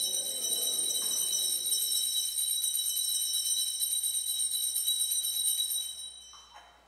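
Altar bells, a cluster of small bells on one handle, shaken in one long continuous jingle that fades out near the end. This ringing marks the elevation of the consecrated host at Mass.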